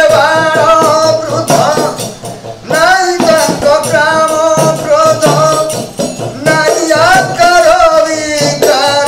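Devotional bhajan: a male voice sings long, drawn-out lines over the steady beat and jingle of a khanjani, a small hand-held frame drum.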